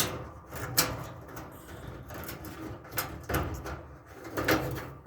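Handling noise from the opened dryer's wiring and metal parts: a handful of sharp clicks and scrapes over a low rumble.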